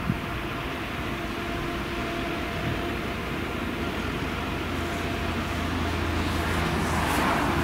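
Claas Jaguar 970 forage harvester, with its MAN V8 engine, running steadily under load while chopping maize, a faint steady whine in the machine noise. The noise grows louder near the end.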